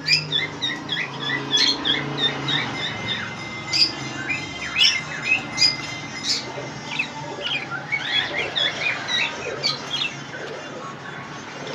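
Many caged birds calling at once: a dense, unbroken chatter of short, high chirps and squawks overlapping one another, with a steady low hum underneath.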